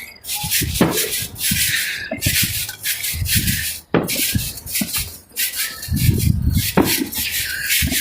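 Fireworks going off: three sharp bangs, about a second in, near the middle and near the end, among stretches of crackling hiss and low thuds.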